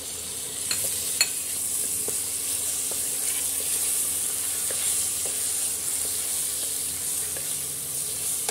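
Raw mutton pieces sizzling in hot oil with onions in a pressure cooker, stirred with a wooden spatula; the spatula clicks sharply against the pot twice about a second in, with lighter taps after.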